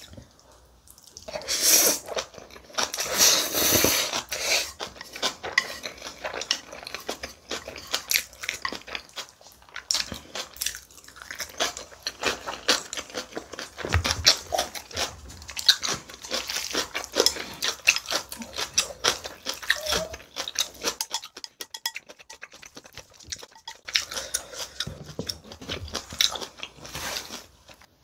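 Close-miked eating sounds: spicy mixed noodles (bibim guksu) being slurped up and chewed, with rapid wet mouth clicks. There is a louder slurping stretch a couple of seconds in.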